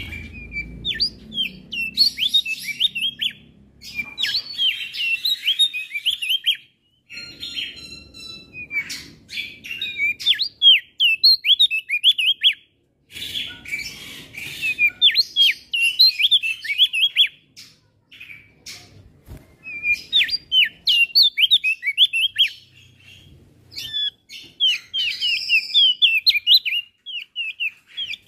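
Male opior jambul singing: phrases of rapid, sharp chirps sweeping up and down, each run lasting a few seconds with short pauses between.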